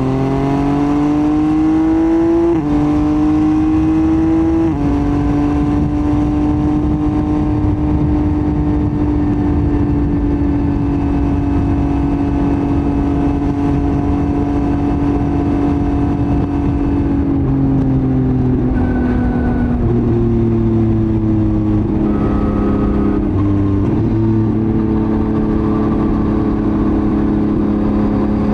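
Yamaha MT-09's CP3 inline-three engine through a Roadsitalia titanium full exhaust, pulling up through the revs with two upshifts in the first five seconds. It then runs at steady revs, eases off about 17 seconds in, and changes gear a few more times near the end.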